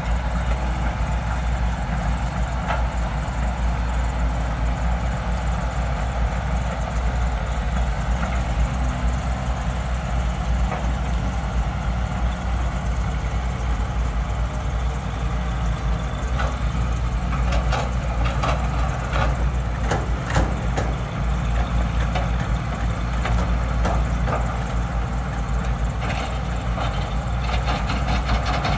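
Diesel engines of hydraulic excavators running steadily, with bunches of clanking knocks from bucket and rock work about two-thirds of the way through and again near the end.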